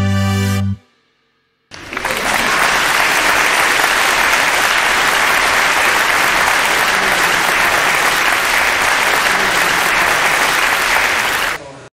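A held music chord ends under a second in, and after a second's pause steady applause begins and runs for about ten seconds, cutting off suddenly near the end.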